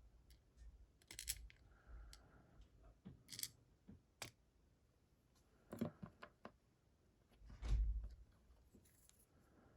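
Scattered small clicks and taps of lock parts being handled while a pin-tumbler lock is disassembled and repinned, with a louder dull knock a little before the end.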